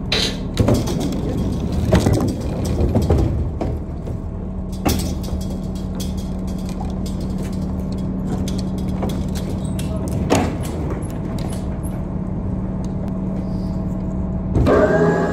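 Manual pallet jack clanking and rattling as a loaded pallet is worked across a box truck's diamond-plate steel floor, in irregular knocks and clicks over a steady low hum. Near the end a different steady, pitched sound comes in.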